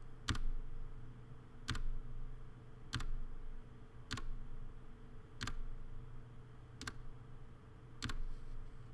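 Single key presses on a computer keyboard, seven in all, about one every 1.2 seconds, over a low steady hum.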